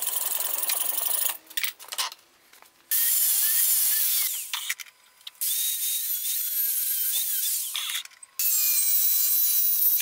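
A hacksaw cutting through a steel nut held in a vise, then an angle grinder with a thin cut-off disc slicing a steel pipe lengthwise in three runs, its whine dipping and wavering as the disc bites into the metal.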